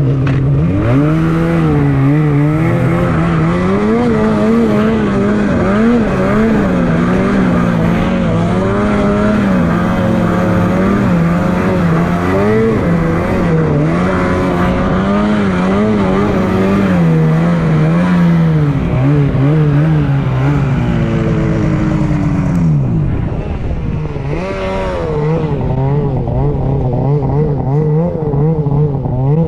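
Snowmobile engine running hard under throttle, its pitch rising and falling as the throttle changes. About two-thirds of the way in the revs drop away briefly, then pick up again.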